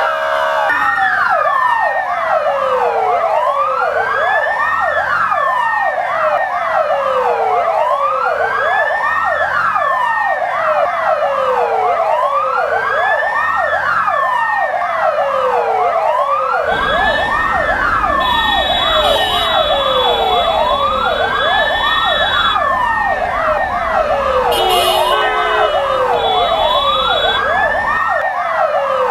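Several fire engine sirens wailing together, each rising and falling in pitch out of step with the others, sounded as a mark of mourning. A low rumble joins in for roughly the last third.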